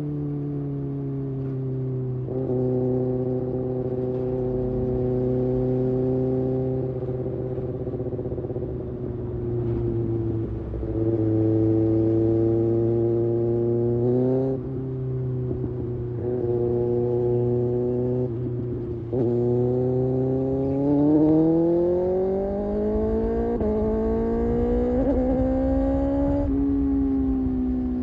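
Kawasaki Ninja ZX-6R's inline-four engine running on the road at a steady cruising note with brief throttle changes. Then, about two-thirds of the way in, it rises steadily in pitch under acceleration for several seconds before easing off near the end.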